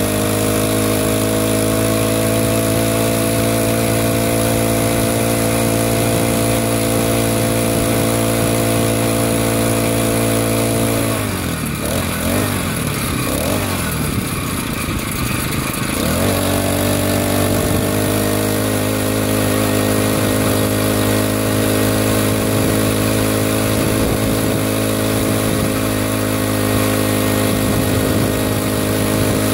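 Small gas engine of a motorized bicycle running at a steady speed. About eleven seconds in its pitch drops and wavers as the rider slows, then it climbs back up about five seconds later and holds steady again.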